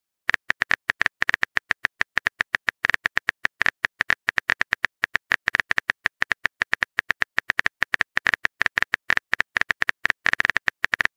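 Phone keyboard typing sound effect: a rapid, uneven stream of short, bright key-tap clicks, several a second, as a text message is typed out.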